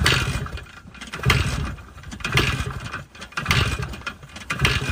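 IZh two-stroke motorcycle engine being kicked over about five times, roughly a second apart, turning without catching. It won't fire because water has got into the engine and wet the spark plug.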